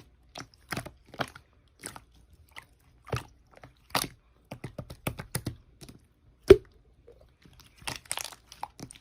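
Slime being pressed and squished by hand, giving a string of short, irregular crackles and pops, with one louder pop about six and a half seconds in.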